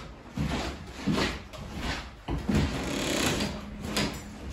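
Irregular knocks, rattles and scrapes of hands handling a just-removed ceiling light fixture and its metal fittings, about half a dozen uneven bumps over a few seconds.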